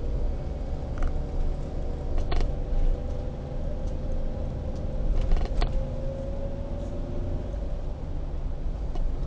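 Car driving, heard from inside the cabin: a steady low rumble of engine and road, with a hum whose pitch climbs a little past the middle and a few short sharp knocks.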